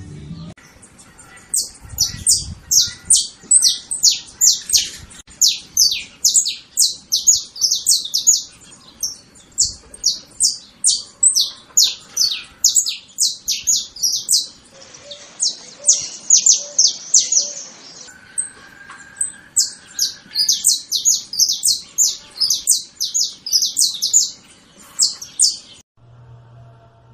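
Saffron finch (canário-da-terra) singing: phrases of quick, high downslurred notes, about three a second, with short pauses between phrases. The song stops near the end.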